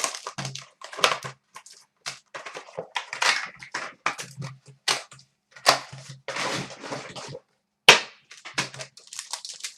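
Plastic shrink wrap on a sealed box of trading cards crinkling and tearing as it is peeled off by hand, in a quick run of irregular rustles and rips.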